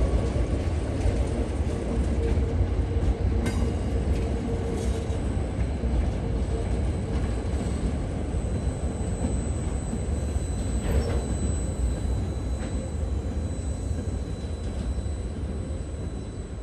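Ballast train wagons rolling past: a steady low rumble of wheels on rail, with a sharp knock about three and a half seconds in, easing off near the end as the last wagons go by.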